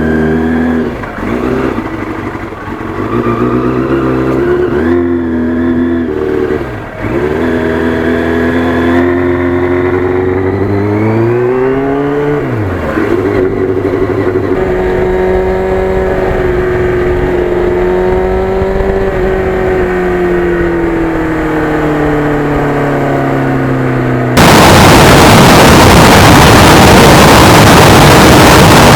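Yamaha FZR1000's inline-four engine pulling away, its pitch climbing in steps through the gears with a sharp drop at a shift about twelve seconds in, then running at a steady cruise. About 24 seconds in, a loud, even rush of noise suddenly drowns it out.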